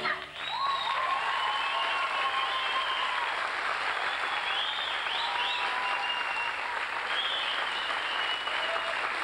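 The music cuts off and a theatre audience applauds steadily, with a few shouts and calls heard over the clapping.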